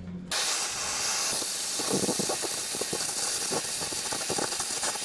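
Oxy-fuel cutting torch hissing steadily as it cuts through 16 mm steel plate. The hiss starts suddenly just after the start, with faint irregular pops mixed in from about two seconds in.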